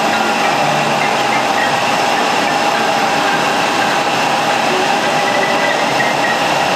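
Steady, loud drone with a constant whining tone, the running noise of a parked jet airliner and its ground equipment at the gate.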